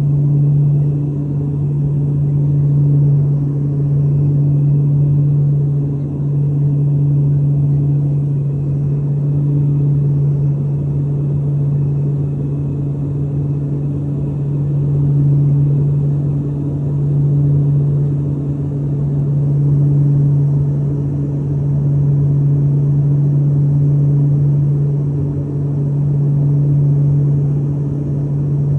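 Steady drone of a propeller airplane's engine and propeller heard from inside the cabin: a strong low hum that gently swells and fades every few seconds.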